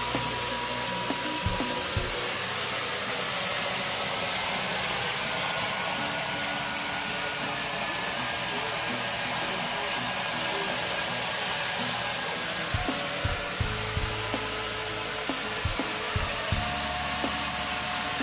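Water gushing from a tap in a steady stream and splashing into a metal basin of water, churning it to foam.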